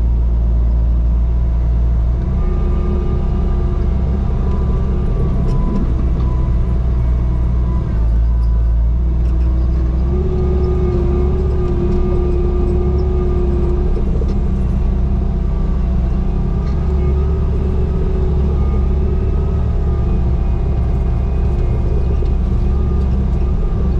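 Bobcat T595 skid steer's diesel engine running steadily under work, with a whining tone above the rumble that rises and falls as the machine is worked.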